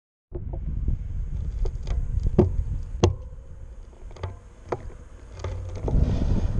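Road bicycle rolling along, heard through its handlebar-mounted camera: a low rumble with scattered sharp clicks and knocks from the bike and mount. The rumble eases in the middle and builds again near the end.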